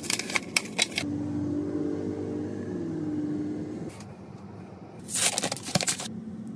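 Plastic packaging of a tube of glue crackling and tearing as it is opened, then a steady low hum for about three seconds, and another brief burst of crinkling plastic near the end.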